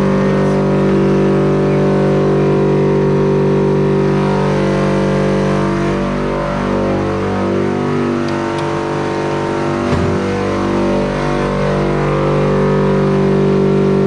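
Workshop machinery's electric motor running with a steady, loud hum. The pitch wavers for a few seconds in the middle, with a small knock about ten seconds in.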